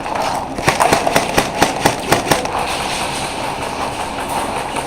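Airsoft gun firing a quick string of about nine sharp shots, roughly four or five a second, starting about half a second in and stopping after about two seconds.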